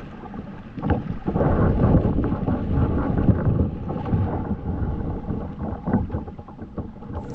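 Kayak being paddled on a river: water splashing and sloshing around the boat in uneven surges, with wind rumbling on the microphone.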